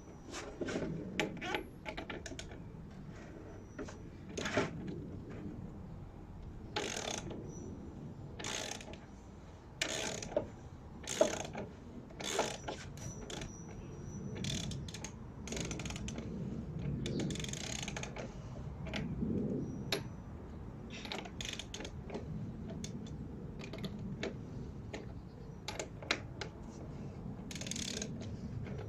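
Metal hand tools working on motorcycle front-fork parts: irregular clicks, clinks and knocks, with stretches of scraping and rattling in the middle.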